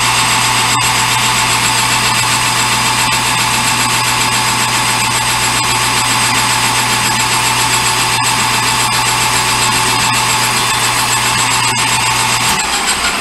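Metal lathe running steadily through a turning cut, a constant motor hum and whine with a few sharp ticks, winding down near the end.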